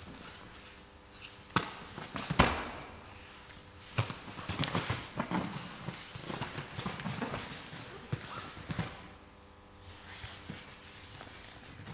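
Two grapplers scrambling on floor mats: bodies and hands thudding and slapping on the mat, with skin and clothing scuffing. A few sharp thuds come in the first four seconds, the loudest about two and a half seconds in, followed by several seconds of scuffling.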